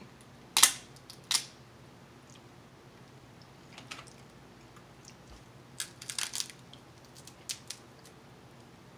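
Eating crab: two loud sharp cracks about half a second and a second and a half in, then scattered smaller clicks and crackles around four and six seconds in, like shell being broken and chewed.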